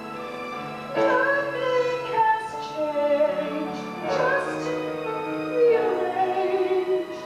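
A woman singing a musical-theatre song over instrumental accompaniment; the accompaniment holds steady notes and her voice comes in about a second in, with wavering held notes.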